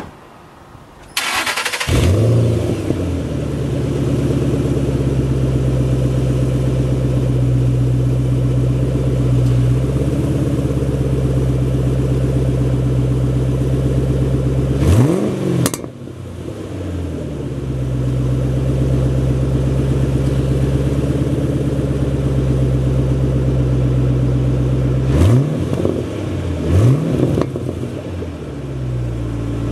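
A 2007 Ford Mustang GT's 4.6-litre V8 starting up through a Bassani axle-back exhaust. The starter cranks briefly a little over a second in, then the engine catches and settles into a steady idle. It is revved once about halfway through and blipped twice in quick succession near the end, dropping back to idle each time.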